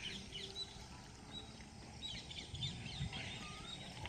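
Small birds chirping, a busy run of short, quick falling notes, over a low steady background rumble.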